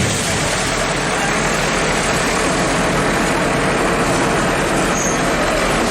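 Bulldozer's diesel engine running steadily in a dense, unbroken noise.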